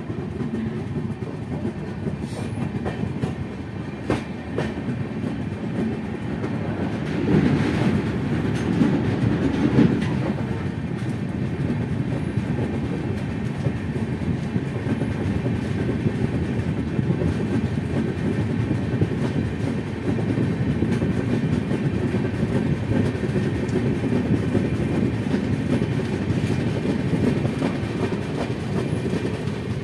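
Passenger express train running on the track: a steady rumble of the coaches with clatter of the wheels over rail joints, swelling briefly about a quarter of the way in.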